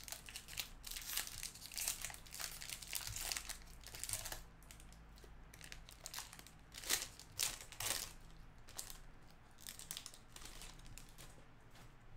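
Wrapper of a 2020 Topps Series Two jumbo baseball card pack being torn open and crinkled. Irregular crackles throughout, with a few louder crinkles past the middle.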